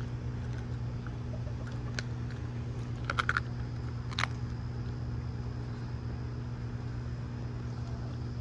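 Doberman crunching the bones of a whole raw squirrel: a few sharp crunches, a quick cluster about three seconds in and another just after four seconds, over a steady low hum.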